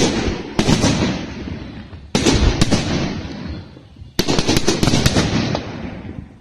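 Fireworks going off: a series of sharp bangs, with a rapid cluster of several about four seconds in, each leaving a long rumbling echo that fades away near the end.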